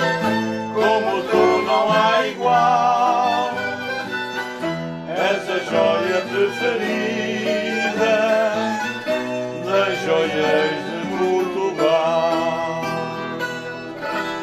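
Instrumental music: a violin melody with vibrato over guitar accompaniment.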